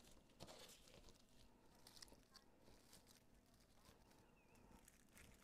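Near silence, with faint scattered rustles as artificial frosted pine and berry sprays are handled and layered together.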